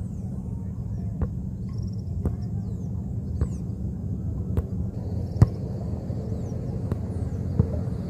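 Football being passed back and forth in the air between two players, a dull thud at each touch of the ball, about once a second, the loudest about five seconds in. A steady low rumble and high bird chirps run underneath.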